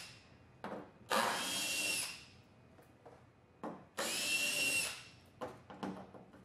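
Cordless drill/driver running in two bursts of about a second each, driving the tailgate access cover's screws out, with short clicks and taps between the runs.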